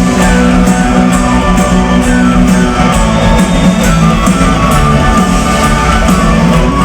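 Folk-metal band playing live: an instrumental passage of electric guitars, bass and drums with a melody line over it, loud and steady.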